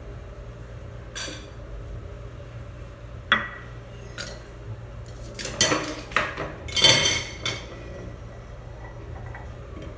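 Kitchen dishes and cutlery clinking and clattering as they are handled: a few separate knocks, one with a short ring, then a busier run of clatter from about five and a half to seven and a half seconds in.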